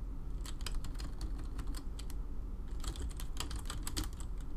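Computer keyboard keys being typed in two quick runs with a short pause about two seconds in, as a word is deleted and another typed into a spreadsheet formula.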